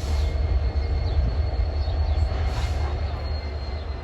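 Freight train with diesel locomotives, moving on the track: a steady low rumble with a faint thin high whine above it.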